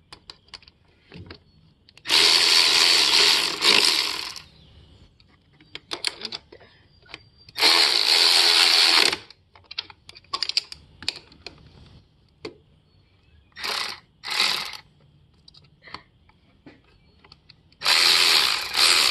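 Cordless power tool running bolts down in five bursts, the first and last about two seconds long and two short ones near the middle, with light clicks of hand tools between.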